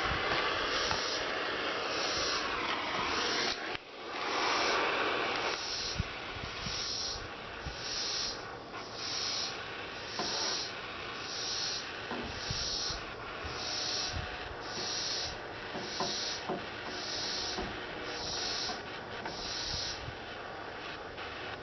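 Small propane hand torch hissing steadily, heating lead-free body solder on a welded steel seam, with a brief break near four seconds; after about five seconds it is quieter, with scattered light knocks and a faint high pulse about once a second.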